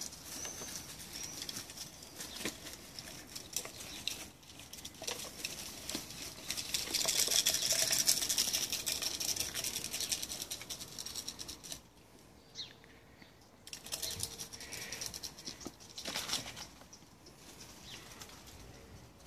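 Ferrets scampering and scrabbling through dry leaves and gravel: a dense, crackling rustle of many small clicks, loudest about halfway through, then thinning to scattered rustles.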